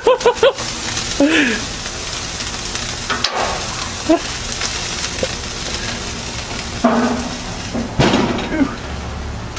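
Meat sizzling on a propane grill: a steady, even hiss, with brief voices over it.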